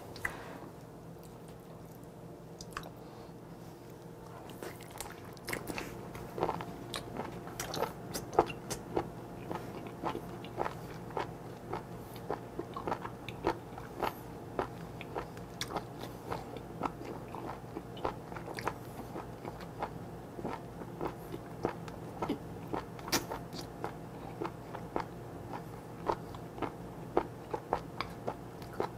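Chewing a mouthful of whole raw live octopus (sannakji). The first few seconds are quiet, then come steady, sharp chewing clicks about twice a second.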